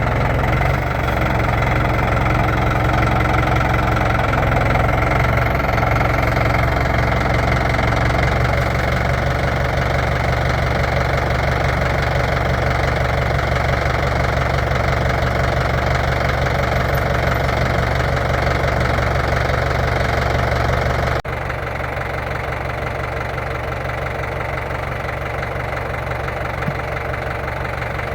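Tractor engine idling steadily. About three quarters of the way through it suddenly becomes quieter and stays that way.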